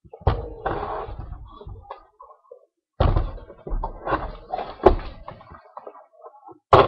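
Knocks, thumps and scraping of a 6.5 HP Lifan Honda-clone engine being turned around and shifted on wooden deck boards. They come in two clusters a few seconds apart, with one sharp knock near the end. The engine is not running.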